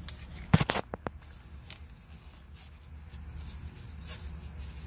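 A quick cluster of sharp clicks and knocks about half a second in, from a gloved hand handling the ABS sensor wiring and bracket at a car's front wheel hub. Then faint scraping and ticking over a low steady hum.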